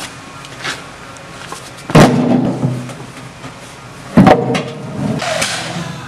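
Two heavy impacts about two seconds apart: broken concrete slabs dropped into the steel bucket of a compact tractor's front loader, each with a short ring after it.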